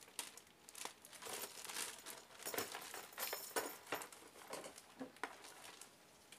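Plastic packaging crinkling and rustling as a hand moves wrapped parts around inside a plastic motorcycle top box, in irregular bursts that die away near the end.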